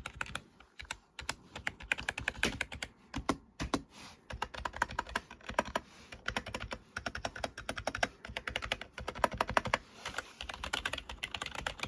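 Firefight K14 TKL gaming keyboard being typed on in a fast, dense clatter of keystrokes, with a couple of brief pauses.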